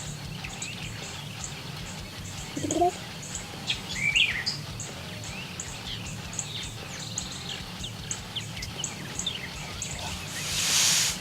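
Songbirds chirping in the background, with a steady run of short, high chirps a few times a second and scattered other calls. A brief rushing noise comes near the end.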